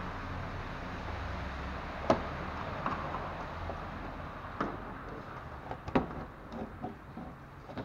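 Sharp plastic clicks and knocks as a screwdriver works the self-tapping screws and clips of a car's plastic engine undertray: three louder clicks a couple of seconds apart, then lighter ticks near the end, over a steady workshop hum that fades partway through.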